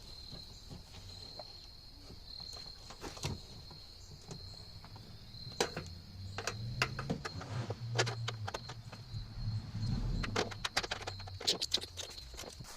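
Scattered clicks and knocks of a ratchet and hands working at the tail-light mounting nuts inside the car's rear, with a cluster of quick clicks near the end, over a steady high-pitched tone.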